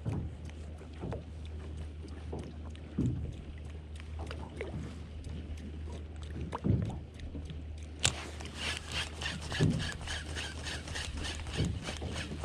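Water slapping against a small boat's hull every second or two over a low steady hum. About eight seconds in, a fast rattling run of clicks starts suddenly.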